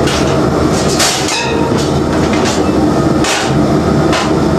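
Field kitchen machinery running with a steady low hum, with metal lids and pans clattering several times.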